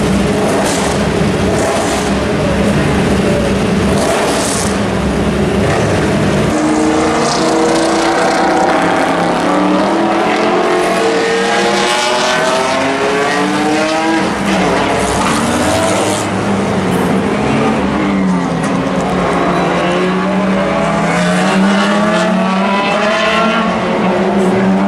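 Several Le Mans prototype race car engines running together on the grid, a dense low rumble. After about six seconds, prototype race car engines accelerate along the track, their pitch climbing through one upshift after another.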